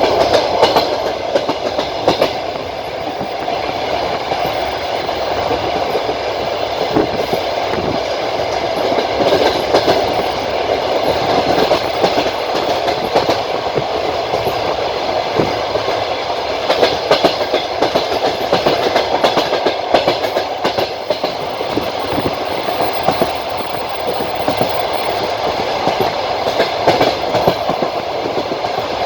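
Passenger train wheels clacking over the rail joints as the coach runs along the line, over a steady rumble.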